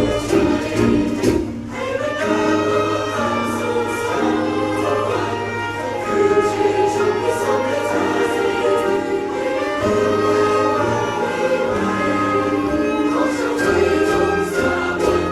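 Live band music with a group of voices singing along to the melody.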